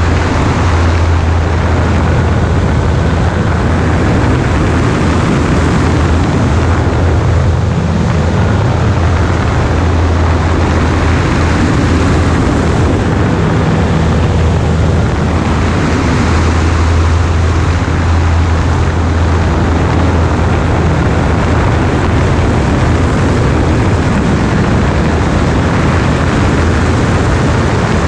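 Single-engine high-wing light airplane in flight: the steady, unbroken drone of its piston engine and propeller under a heavy rush of airflow over a wing-mounted camera's microphone.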